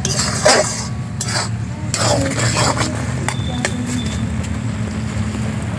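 Metal spoon scraping and clinking against a steel wok, stirring a thick, dry fish curry in repeated strokes, with a faint metallic ring about halfway through. A steady low hum runs underneath.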